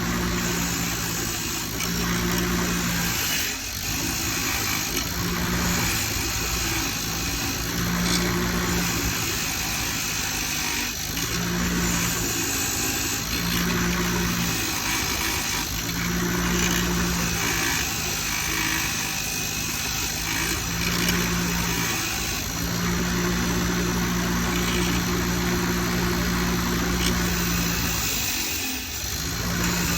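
A motor-driven wire wheel running steadily, its wire bristles scrubbing rust and grime off an old bolt held against it. The motor's hum swells and eases every second or two, with a few short dips, over a constant hiss of the brushing.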